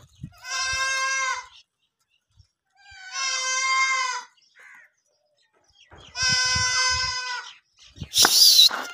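Sojat goats bleating: three long, wavering bleats about a second and a half each, spaced a couple of seconds apart. Near the end comes a short, loud, hissing burst of noise.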